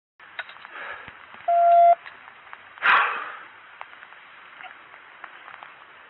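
A single steady electronic beep lasting about half a second, then a loud, short burst of noise about a second later, with scattered faint clicks and handling noise.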